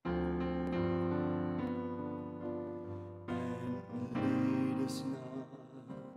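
Keyboard playing sustained piano chords, cutting in abruptly from silence, with the chords changing several times.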